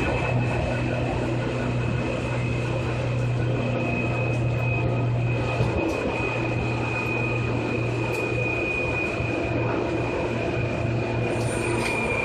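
Seibu 2000 series electric train running at speed: a steady rumble of wheels and running gear with a high whine held over it, the whine falling slightly in pitch near the end.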